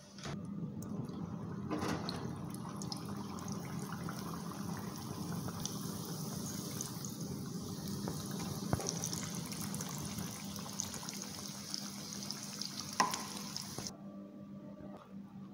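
Long dough roll deep-frying in a pan of hot oil: a steady sizzle with fine crackling, which cuts off abruptly near the end. A short metal clink comes just before it stops.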